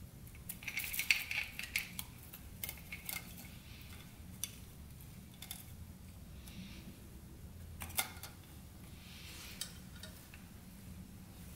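Light metallic clinks and rattles as a head gasket is lowered over the timing chain and fitted onto the cylinder of a Yamaha YFZ450 engine. There is a flurry of clinks about a second in, then scattered single clicks, the loudest about eight seconds in, with soft handling rustles between.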